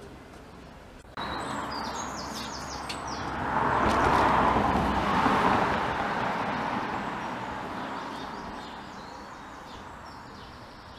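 A vehicle passing, its rushing noise swelling to a peak about four seconds in and slowly fading away, with small birds chirping over it.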